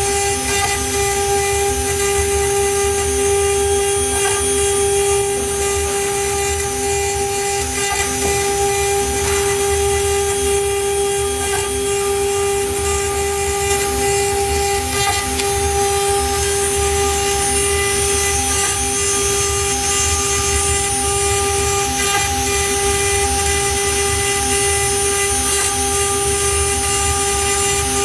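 CNC wood router's spindle running with a steady whine while its small bit carves a relief pattern and a pocket into a wood panel, the cutting noise of the bit in the wood under the whine.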